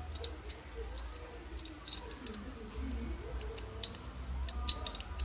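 Steel CV joint cage being worked into the outer joint housing by hand: scattered small metal clicks and clinks, the sharpest about four and a half seconds in.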